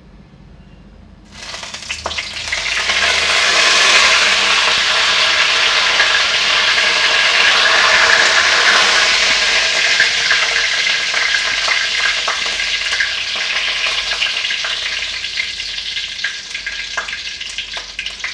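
Curry leaves sizzling and spluttering in hot mustard oil in a steel kadhai for a tadka. The hiss starts suddenly about a second in, then slowly dies down, with scattered crackles near the end.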